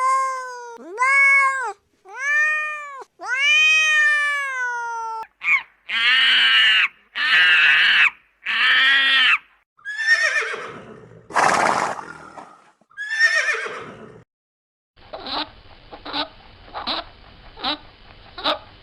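A series of animal calls: four drawn-out calls that rise and fall in pitch, then three harsher calls, three calls falling in pitch, and near the end about six short calls in a steady rhythm.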